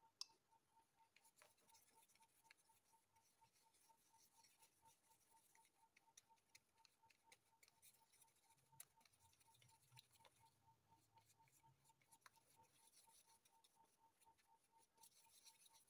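Very faint: a flat paintbrush scratching across paper as acrylic paint is spread in strokes, with a faint, even ticking at about four a second.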